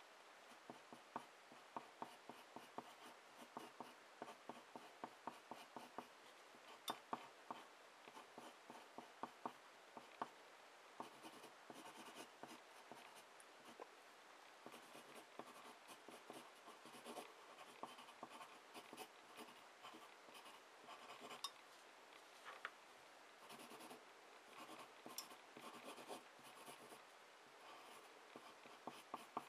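A wooden graphite pencil scratches across paper in many short strokes, drawing and shading. From about a third of the way in, the strokes come thicker and more continuous.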